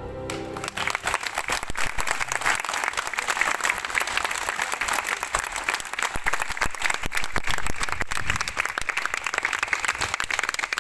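An audience applauding with dense, steady clapping. The final held note of the song and its musical accompaniment ends within the first second.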